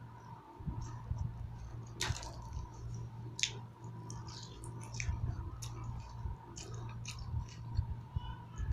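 A person chewing food close to the microphone, with irregular wet smacks and mouth clicks, over a steady low hum.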